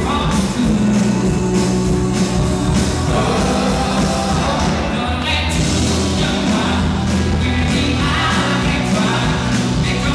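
Live rock band: a male lead vocalist sings into a microphone over drums and keyboards, loud and steady throughout.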